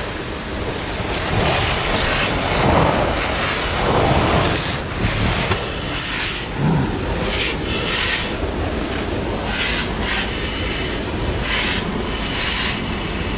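Fire hose nozzle spraying a water jet onto smouldering debris: a steady rushing hiss that swells now and then, with steam rising off the hot material.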